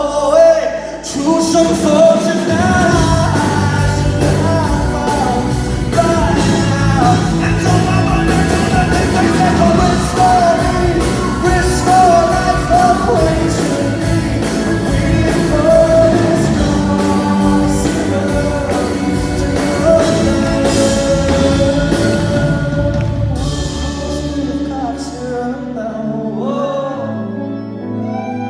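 Live rock band with a singer, heard from the audience in a large hall. The drums drop out near the end, then the bass, leaving the singing and keys.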